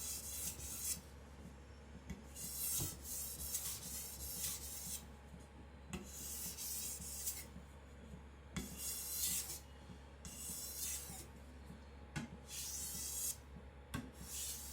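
Steel chopper blade rasping across a Japanese water stone in about eight separate sharpening strokes, each under about a second long, touching up the edge near the tip.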